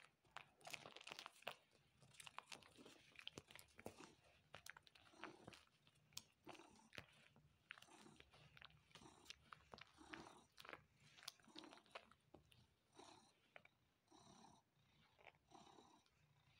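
Tabby cat suckling on a person's bare forearm: a fast, uneven run of soft wet sucking clicks and smacks. It is the nursing behaviour of a kitten at the teat, kept up by an adult cat as comfort suckling.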